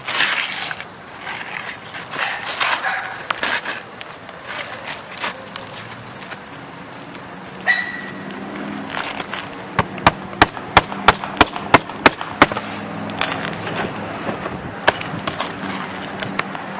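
Asphalt shingles scraping and rustling as they are handled on the roof, then a quick run of about a dozen hammer blows, about five a second, driving a roofing nail, a little past halfway through.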